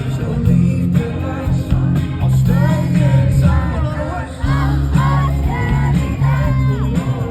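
Live band music with a heavy bass beat and a singing voice. Sung phrases come in about two and a half seconds in and keep going.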